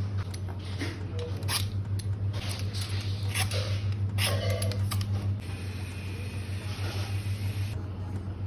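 Small handling noises, a run of short clicks, scrapes and rustles, over a steady low hum.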